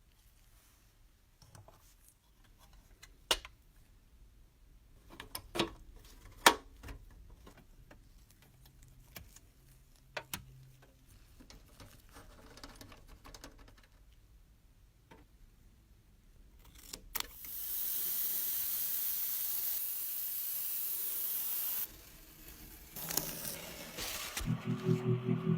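Scattered small clicks and taps of parts being handled, then a steady hiss for about four seconds, and music coming in near the end.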